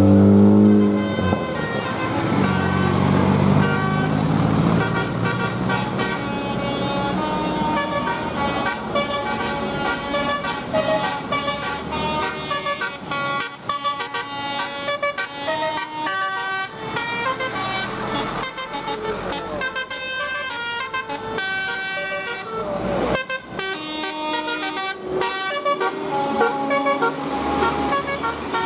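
Bus telolet horns, a set of multi-tone air horns, sounding rapid runs of notes one after another like a tune.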